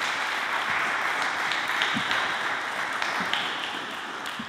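Small audience applauding, the clapping fading away near the end.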